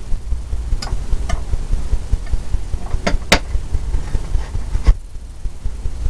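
Paintbrush dabbing and tapping paint onto a stretched canvas: a handful of short, sharp taps over a continuous low rumble.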